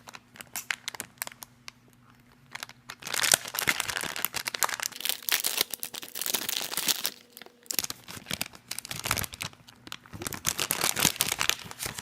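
A blind bag's wrapper crinkling and tearing as it is opened, in two long spells of dense crackling with a short pause between them.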